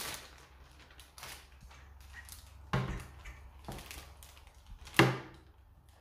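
A few short, sharp knocks of a metal spoon and stainless steel bowl while ginger-garlic paste is spooned into a plastic bag; the loudest knock comes about five seconds in.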